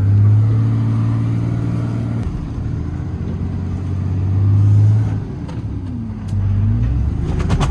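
Motor vehicle engine running, its revs swelling and easing off a few times as it is manoeuvred after failing to climb a small sandy hill.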